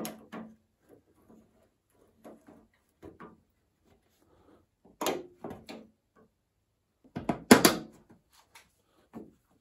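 Headlight trim strip on a Mercedes-Benz W163 being handled and pressed into place under the headlight: scattered light clicks and knocks, with a louder knock about five seconds in and the loudest, a quick cluster of knocks, about seven and a half seconds in.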